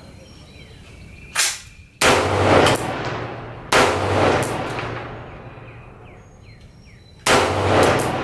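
Rifle shots: a short, sharper crack about a second and a half in, then three loud reports about two, three and a half, and seven seconds in, each dying away over about a second.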